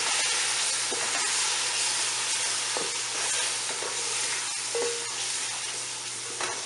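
Onions, spices and ginger-garlic paste frying in oil in an aluminium pot: a steady sizzle, stirred with a wooden spoon that scrapes against the pot a few times.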